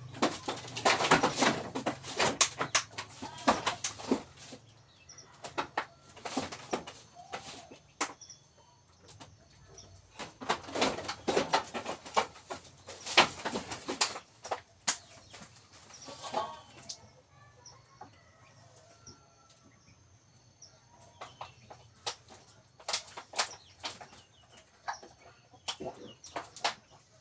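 Irregular scuffling, rustling and knocking as a goat is held and dosed with a herbal drink for its cough and cold, quieter for a few seconds past the middle; chickens cluck in the background.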